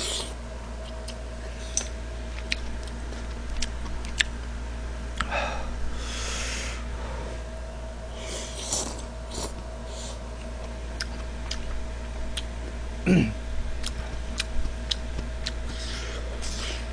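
Eating sounds: noodles of jjamppong slurped with chopsticks twice in the middle, and scattered sharp clicks of chopsticks against the bowl and plate. A short vocal sound falling in pitch, the loudest moment, comes a few seconds before the end, over a steady low electrical hum.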